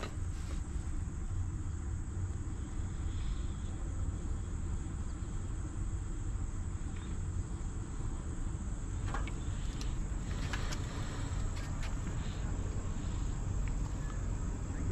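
Insects trilling steadily at one high pitch over a steady low rumble of wind and tyre noise from a fat-tire e-bike ride.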